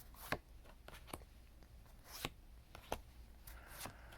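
Pokémon trading cards handled and flipped through by hand: faint, scattered soft swipes and clicks of card against card, about five in four seconds.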